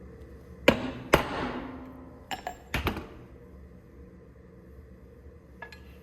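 Hammer blows on metal: two loud, sharp strikes about half a second apart that ring on, then two quick pairs of lighter knocks, and a faint tap near the end.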